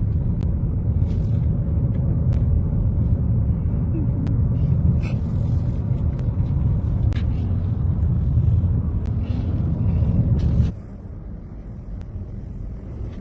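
A car driving, a steady low rumble of engine and road noise that drops to a quieter rumble about eleven seconds in.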